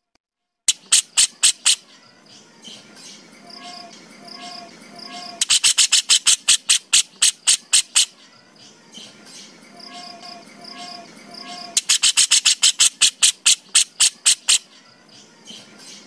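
Small songbird's rapid-fire 'tembakan' call, a recording used for song training: bursts of sharp, evenly spaced notes, about eight a second, three times, with softer chirps and short whistles between.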